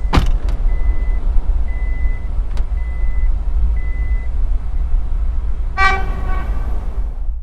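Four short electronic beeps about a second apart, then a single vehicle horn honk, less than a second long, near the end, over a steady low rumble. A sharp click comes just before the beeps.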